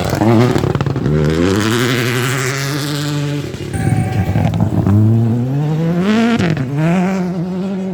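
Rally car engine revving hard under acceleration, its note climbing and falling back several times.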